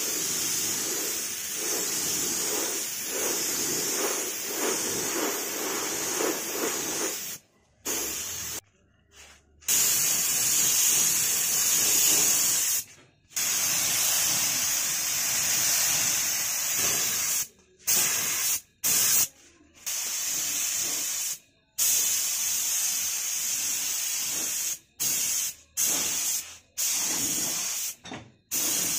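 Compressed-air paint spray gun hissing as it lays a coat of paint on a helmet shell. The hiss runs steadily at first. From about a quarter of the way in it stops and restarts about ten times, in bursts of one to four seconds, as the trigger is released and pulled again.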